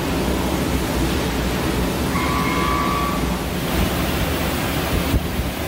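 Hwacheon Hi-Tech 450CL CNC lathe spindle turning a large round metal workpiece at about 500 RPM: a steady rushing machine noise, with a faint whine coming in for about a second around two seconds in.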